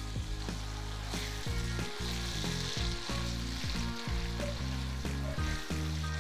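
Ground pork sizzling in a nonstick frying pan as it is stirred with a spatula, its fat rendering out into the pan. Background music with steady notes plays under it.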